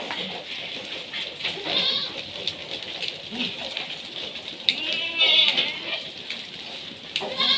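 Goats bleating: several calls, with a long wavering bleat about five seconds in and another near the end.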